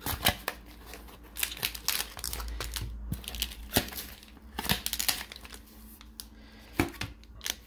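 Cardboard mailer being opened and handled, with scattered scrapes, taps and rustles, then the crinkle of a plastic sleeve as the booster packs inside are pulled out.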